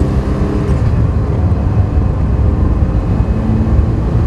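Ferrari 328 GTS's 3.2-litre V8 running steadily as the car drives along, a loud, rough low rumble.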